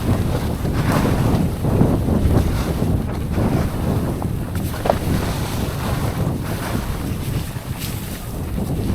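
Wind rushing over a mountain bike rider's camera microphone at speed, mixed with tyre and trail noise and small scattered clatters from the bike.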